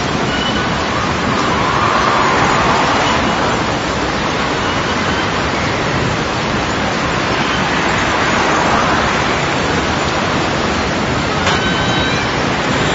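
Dense mix of layered garden field recordings forming a steady, loud hiss-like noise that swells slowly twice. About eleven seconds in comes a brief click with a few short high tones.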